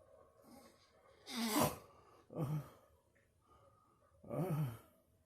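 Loud snoring: a long snore about a second in, a shorter one a second later, and another near the end, with quiet breathing between.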